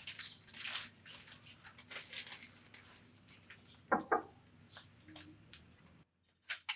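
Paper wrapping of a flower bouquet rustling as it is handled, then two sharp knocks of a fist on a door about four seconds in, followed by a few light clicks near the end.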